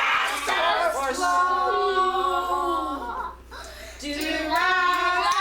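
A small group of voices singing a song together without accompaniment, with a short break about three seconds in.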